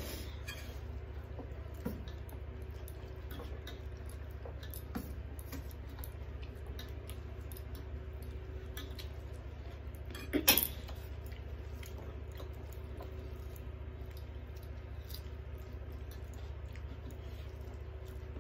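Hands eating rice and curry from metal plates: fingers mixing and scooping food, with chewing and scattered light clicks against the plates over a steady low hum. One louder clink about ten seconds in.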